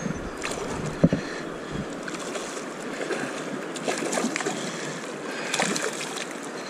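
Steady rush of shallow river current, broken by splashes as a hooked smallmouth bass thrashes at the surface near the angler, the biggest splashes late on. A single sharp thump about a second in.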